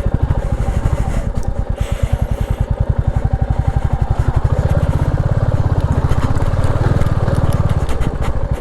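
Royal Enfield Classic 350's single-cylinder engine running at low speed in a steady pulsing beat, pulling the loaded bike along a rough off-road trail.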